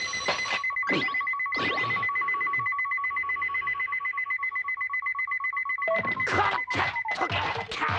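A cartoon alarm clock's bell ringing fast and steadily, with a few sharp knocks over it. The ringing stops about six seconds in and gives way to a quick run of clattering hits.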